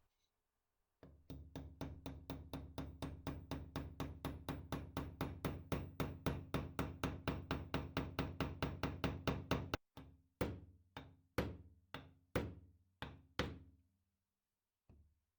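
Hammering the brass hammer head onto its wooden handle: a fast run of knocks, about five a second, growing louder. Then seven slower, heavier blows about half a second apart, and one last light tap near the end.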